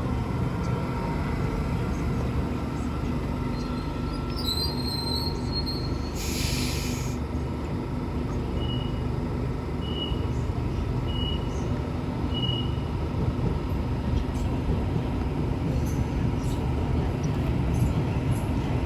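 A train running at a station platform with a steady rumble. A brief high wheel squeal comes about four seconds in, then a short burst of hiss, then four short high beeps a little over a second apart.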